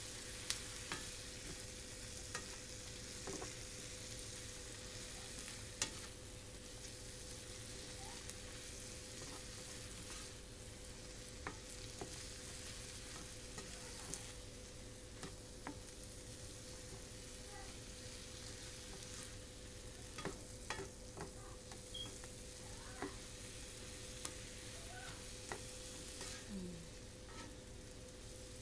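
Butter-garlic shrimp and asparagus sizzling in a frying pan, stirred with a utensil that clicks against the pan now and then. A faint steady hum runs underneath.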